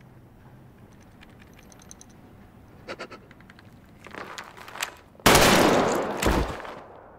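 Gunfire: a sudden loud burst of shots about five seconds in, ringing out over a second or so, with another shot about a second later, after a tense near-quiet stretch with a few faint clicks.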